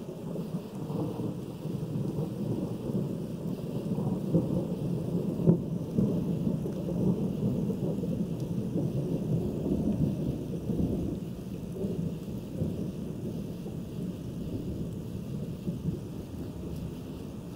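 Thunder rumbling long and low, swelling about a second in and slowly easing off, over light rain. One sharp tick comes about five and a half seconds in.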